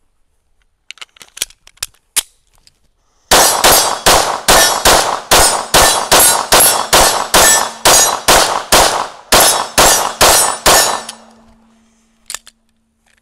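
A few light clicks, then a 9mm Sig P365 Macro TacOps pistol with a Faxon threaded barrel and compensator fires about twenty rapid shots, roughly three a second. A single click follows near the end.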